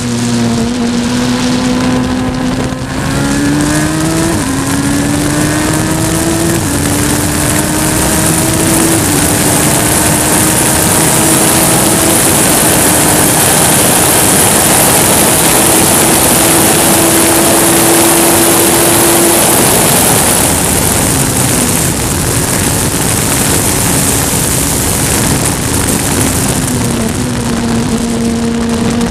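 Race car engine at speed on the track, its note climbing through several upshifts in the first dozen seconds. It holds a steady high pitch, then drops lower about twenty seconds in as the driver eases off. Loud wind and road rush lie under it throughout, as heard onboard.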